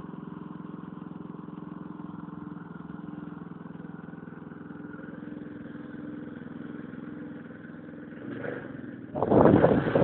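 Small garden tractor engine running steadily, then suddenly much louder and rougher about nine seconds in.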